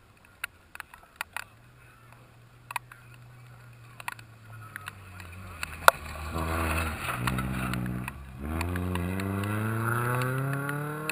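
Rally car at full throttle on a gravel stage, its engine note growing louder as it approaches and passes. The pitch drops briefly for a gear change, then climbs steadily again under acceleration.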